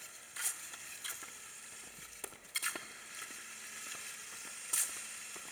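Tiny Lego Technic RC car driving on a gym floor: a steady high hiss from its geared-up large motor and drivetrain, with a few short, sharp high sounds about half a second, two and a half seconds and nearly five seconds in.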